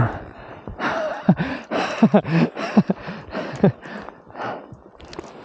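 A person breathing hard and grunting in a quick run of short bursts, from about one to four seconds in.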